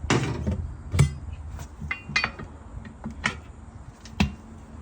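Steel tire irons clanking against a steel wheel rim as a stiff 19.5-inch truck tire is levered onto the rim by hand. There is a scraping clatter at the start, then sharp metal clanks roughly once a second.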